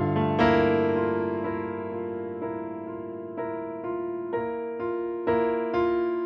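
Solo piano: a chord struck about half a second in rings down slowly, then notes are struck about twice a second, growing louder toward the end.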